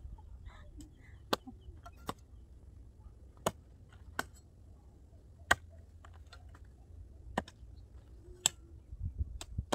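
Long-handled hoes chopping into hard, grassy soil: sharp strikes at uneven intervals, about one every second or so, as the ground is broken up and the grass cut out.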